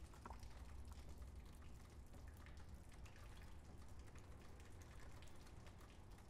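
Near silence: a faint low rumble with scattered faint ticks.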